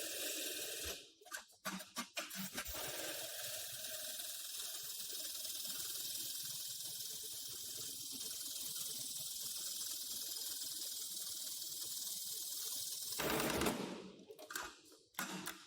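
Extra heavy-duty programmable pattern sewing machine running an automatic stitch cycle. A few clicks as it starts, then a steady running noise for about ten seconds, and a short loud burst near the end.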